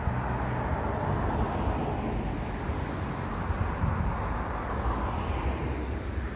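Steady rush of road traffic from a busy road, swelling and easing as vehicles pass.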